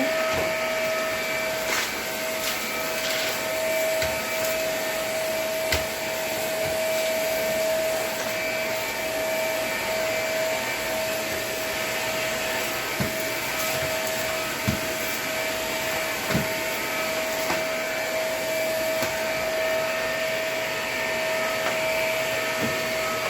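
Vacuum cleaner running steadily, its motor giving a constant whine over the airflow noise, with a few scattered light clicks and low knocks as it works over the floor.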